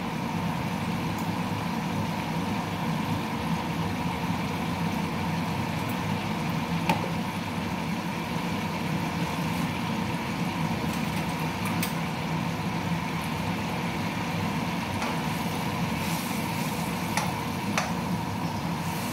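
Chicken and sauce stir-frying in a hot pan, a steady sizzle over a constant mechanical hum, with a few short clicks of the utensil against the pan now and then.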